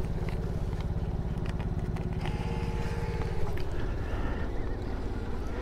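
An engine idling with a fast, even low pulse that fades about four seconds in, while a dollar bill is fed into a coin change machine, whose bill acceptor gives a brief thin whir in the middle.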